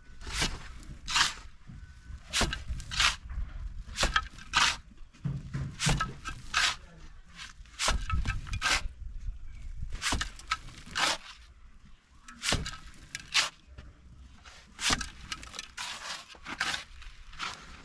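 Mason's steel trowel scraping mortar in short, sharp strokes, often in pairs, roughly one a second, as plaster is worked into a hole in the wall.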